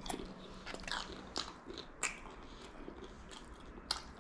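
A person chewing takeaway KFC food close to the microphone: an irregular scatter of short, crisp crunching bites, over a faint steady hum.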